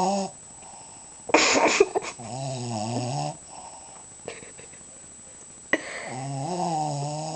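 Shih Tzu snoring in its sleep: low pitched snores about a second long, one fading just after the start, one about two seconds in and another near the end. A short noisy burst comes just before the second snore.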